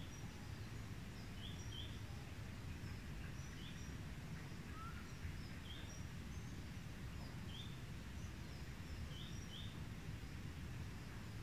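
Faint outdoor ambience: a low steady background noise with a bird repeating short high chirps every second or two.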